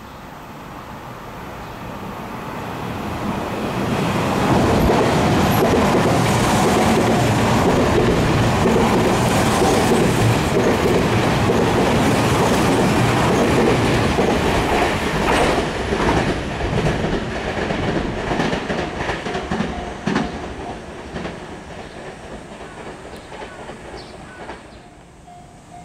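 Electric commuter train passing close at speed: the rumble builds over the first few seconds and stays loud for about ten seconds. The wheels then clack over rail joints in a steady rhythm as the train draws away and the sound fades.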